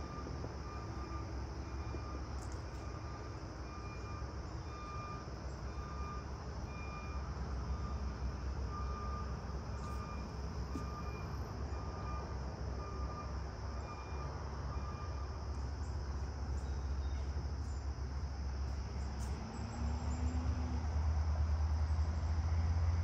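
Outdoor ambience: a steady low rumble with a faint high beep repeating a little faster than once a second, which stops about two-thirds of the way through. The low rumble swells near the end.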